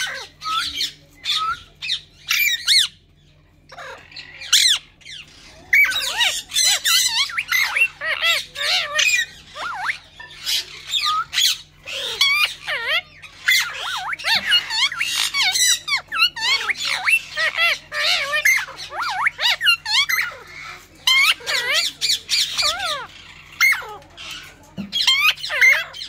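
White Indian ringneck parakeet chattering and squawking in quick runs of sharp, pitch-bending calls with short pauses, and a brief lull about three seconds in.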